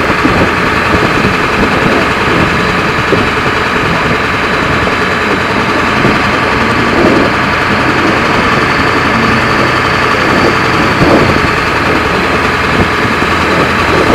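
Ford F-350's 7.3 L Powerstroke turbo-diesel V8 running steadily, with a couple of brief thumps partway through.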